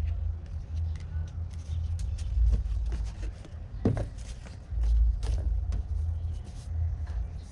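Packaging being handled: scattered rustles and clicks of paper and cardboard, over a steady low rumble on the microphone.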